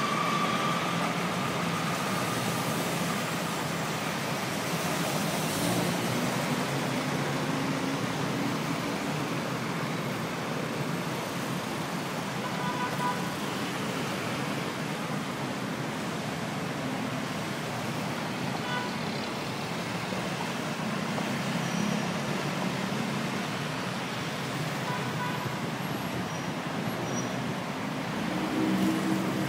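Heavy rush-hour road traffic: a steady wash of engine and tyre noise from many vehicles, with a few faint short beeps now and then.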